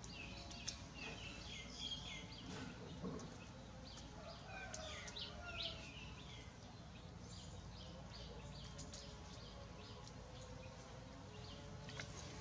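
Chicks peeping: many short, high chirps, often falling in pitch, coming in irregular flurries. A few sharp ticks and a steady low background rumble run underneath.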